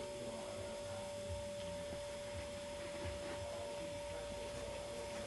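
A steady hum held at one pitch, with faint low rumbles underneath.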